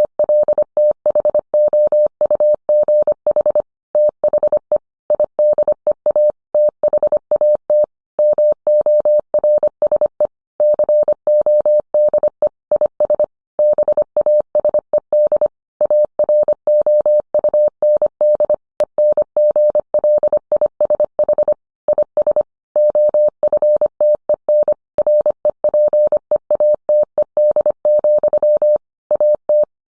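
Morse code sent as a single beeping tone keyed rapidly on and off in short and long elements (dits and dahs), with slightly longer pauses every few seconds between words.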